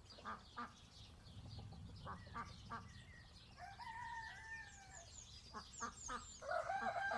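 Chickens clucking in short calls, with a rooster crowing about three and a half seconds in and again near the end.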